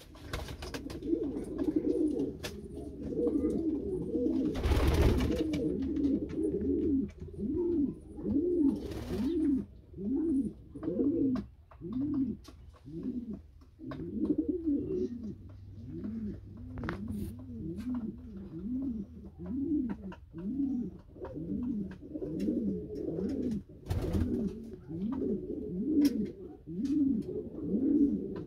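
Norwich pouter pigeons cooing, a long run of low rising-and-falling coos about one a second. A few brief rushes of noise break in, around five and nine seconds in and again near the end.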